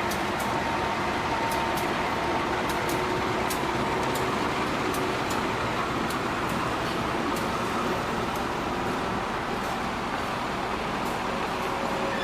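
Train rolling along the track in a rail yard: a steady rumble with a faint held whine and scattered light clicks.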